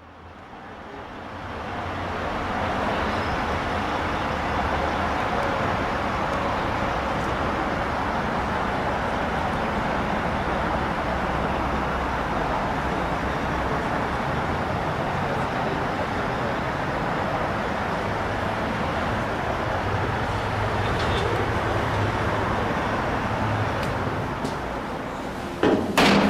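A steady wall of amplified noise from a live noise-punk band fades in over about two seconds and holds, with a low hum beneath it. Near the end, loud sudden hits start, like drums or struck gear.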